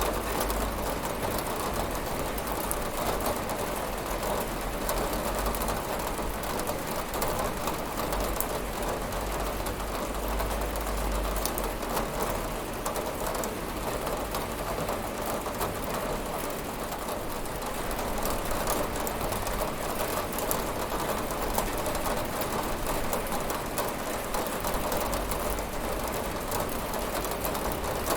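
Steady rain falling and pattering on a window, with a low rumble underneath.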